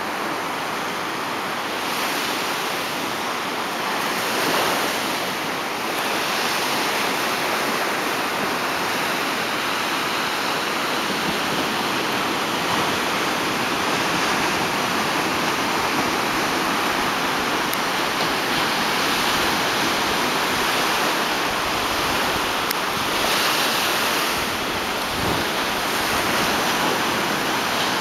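Small ocean waves breaking and washing up a beach: a steady surf wash that swells a few times as waves come in.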